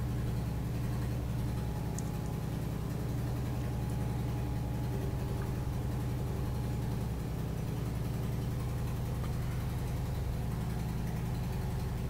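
A steady low hum with a fine rapid pulse, holding the same level throughout.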